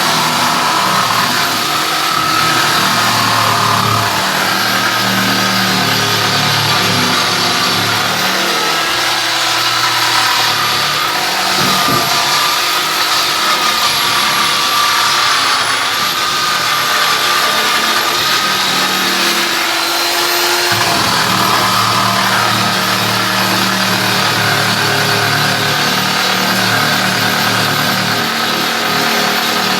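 Electric drill with a wire-brush attachment running continuously, scouring rust and old paint off the steel of a tractor link box. The motor's whine wavers in pitch as the brush is pressed into the metal and eased off.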